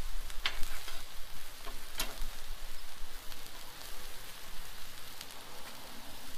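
Tenderized steak, red onions and sweet peppers sizzling on a Blackstone flat-top griddle, a steady hiss, with two sharp clicks from the metal spatulas about half a second and two seconds in.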